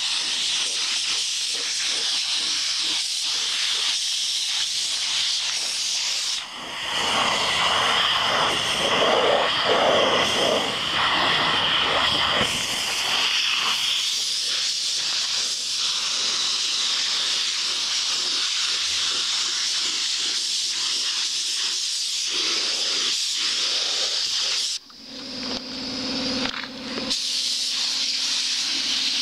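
Gravity-feed air spray gun hissing steadily as it sprays base coat paint. The hiss grows louder for several seconds about a quarter of the way in and breaks off briefly near the end before resuming.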